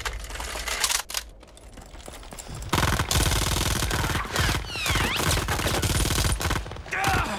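Sustained automatic machine-gun fire, a loud rapid burst lasting about four seconds that starts near the three-second mark, with a few falling whines partway through.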